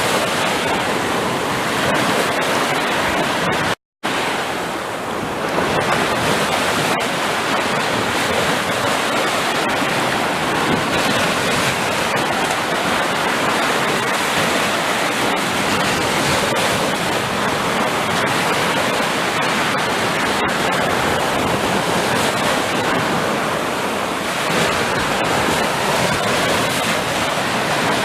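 Steady wash of ocean surf. Near four seconds in it cuts out completely for a split second, then comes back.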